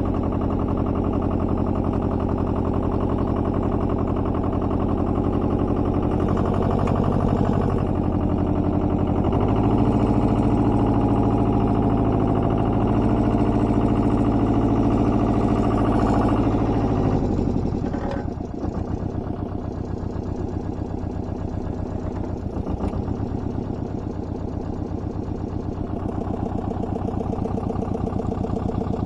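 Compact tractor engine running steadily at working speed, a little louder from about a third of the way in, then throttling back about two-thirds through to a slower, pulsing idle.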